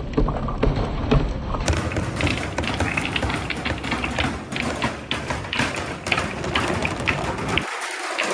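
Many hard balls rolling down a wooden marble-run track, with a dense, irregular clatter of clicks and knocks as they hit the track and each other over a low rolling rumble. The sound changes abruptly a little under two seconds in, to a brighter, busier clatter.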